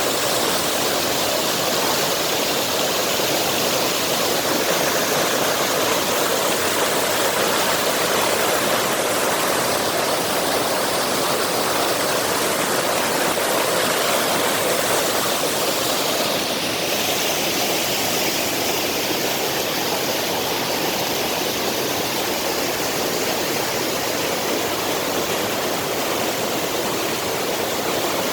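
Mountain stream rushing over rocks in a steady, unbroken roar of water.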